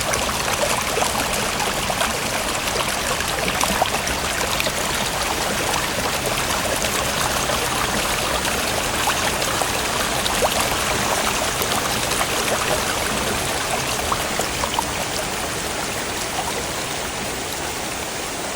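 Steady rush of a mountain stream cascading over rocks.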